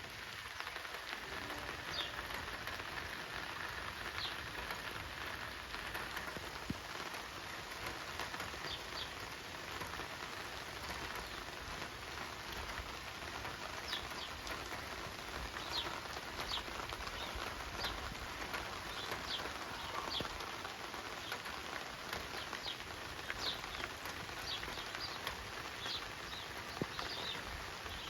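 Rain falling steadily, with short high chirps scattered through it, more often in the second half.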